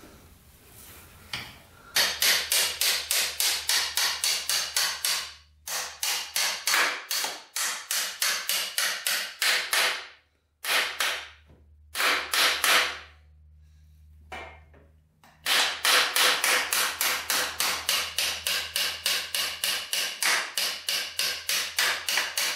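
Hammer strikes, about four a second, in four runs with short pauses between them.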